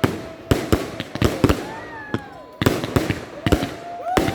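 Fireworks going off: a rapid, irregular string of sharp bangs, a dozen or so, with pitched tones that glide up and down between them.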